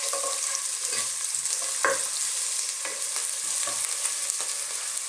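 Sliced onion and garlic sizzling steadily in hot oil in a nonstick pot while a spatula stirs and scrapes them around the pan with light knocks, the sharpest a little under two seconds in.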